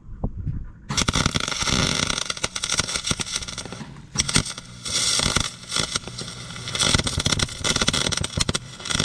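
MIG welder arc crackling as wire is fed into the steel tank at the pipe joint. It starts about a second in and runs in three bursts, with short breaks about four and six seconds in. The welds are coming out porous, which the welder puts down to strong wind and a gas bottle he suspects holds only compressed air instead of shielding gas.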